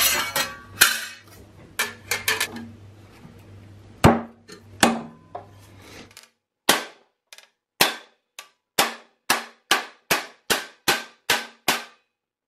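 Thin steel sheets clattering and knocking as they are laid out on a steel bench plate, then a steel panel hammer striking the ground-flush MIG weld seam in a steady run of sharp blows, about two a second. The MIG weld is hard enough that the blows dent the sheet beneath it rather than flatten it.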